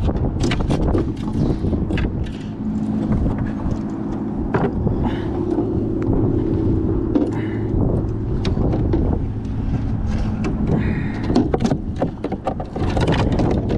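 A steady low drone of a motor running, with wind rumbling on the microphone and scattered clicks and knocks of handling. The drone fades out about eleven seconds in.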